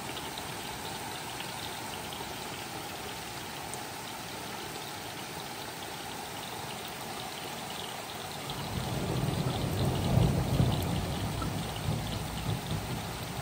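Steady rain falling with drops pattering on a surface. About two thirds of the way through, a low rumble of thunder builds up, peaks and rolls on to the end.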